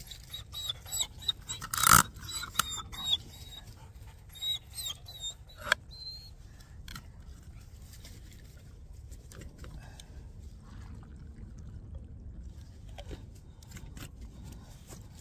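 Sharp metal clicks and scrapes as nails are pushed in around the rim of a cardboard-filled tin can stove, with one louder knock about two seconds in. Short, high, wavering squeaks come and go with the clicks during the first few seconds.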